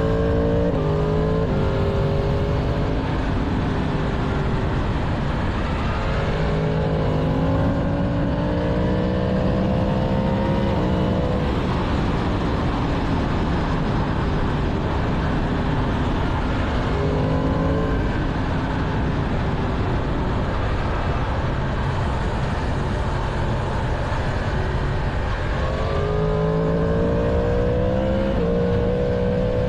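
Stock 2022 Yamaha MT-10's crossplane inline-four engine under way, accelerating through the gears three times: near the start, in the middle and near the end. Each gear is a rising pitch cut off by a shift. In between it cruises at a steadier pitch under a constant rush of wind noise.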